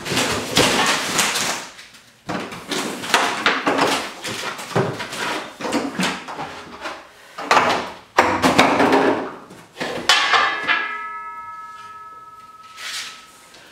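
Cardboard packaging rustling and scraping as the box flaps are pulled back and a metal hose reel is handled inside it. About ten seconds in, a metal reel half clanks and rings with several tones, fading over about three seconds.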